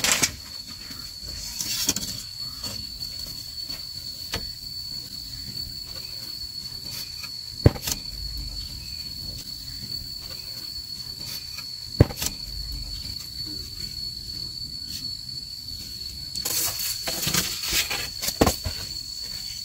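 Split bamboo strips knocking and clattering as they are worked into a woven bamboo wall: scattered sharp knocks, two louder ones about eight and twelve seconds in, and a busier stretch of clattering near the end. Behind it an insect keeps up a steady high drone.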